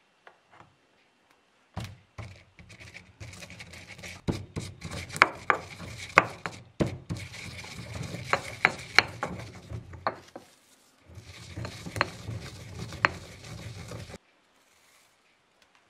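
Stone pestle grinding juniper berries and spices with coarse salt in a stone mortar: a gritty rubbing and crunching broken by sharp cracks and knocks. It starts about two seconds in, pauses briefly near ten seconds, and stops about fourteen seconds in.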